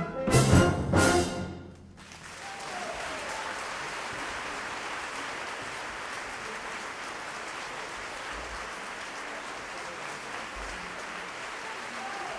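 An orchestra ends the dance on two loud final chords, about a second apart. About two seconds in, steady audience applause starts and carries on.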